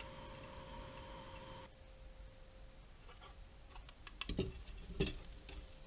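Light clicks and taps of clear plastic cutlery, a spoon and fork, being handled, the two loudest clacks about four and five seconds in. Before them a steady electrical hum cuts off about two seconds in.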